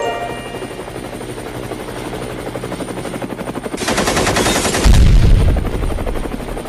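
Helicopter sound effect: rotor blades chopping at a steady fast beat with a high whine over them. About four seconds in comes a dense burst of machine-gun fire, then a loud, deep explosion that dies away over the next second or two.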